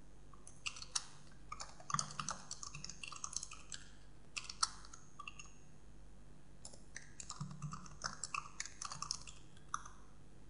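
Computer keyboard typing out a command: irregular runs of faint keystroke clicks, with a pause of about a second and a half midway.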